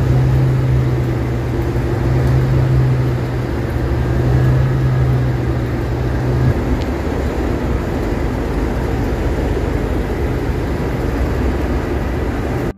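Network Rail Class 97/3 (Class 37) diesel locomotives with English Electric V12 engines running, a heavy steady engine drone. A strong low hum in it cuts off suddenly about six and a half seconds in while the engine noise carries on.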